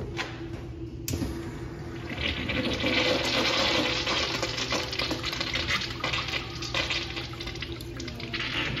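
Wall-hung Sloan urinal flushing: a sharp click from the flush valve about a second in, then rushing water through the bowl that swells, peaks and gradually tapers off.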